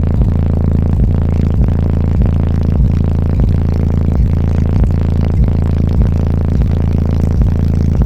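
Car audio subwoofers playing bass-heavy music loudly: deep, steady bass notes under a regular beat of about one and a half hits a second.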